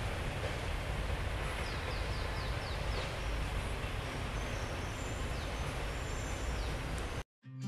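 Steady low rumble from a freight train of open wagons, with a bird giving a quick run of short falling chirps about two seconds in. The sound cuts off abruptly near the end.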